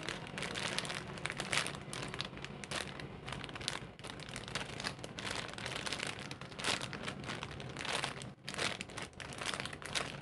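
Clear plastic packaging bag crinkling as a squishy toy is handled and unwrapped from it, irregular crackling with short lulls about four and eight seconds in.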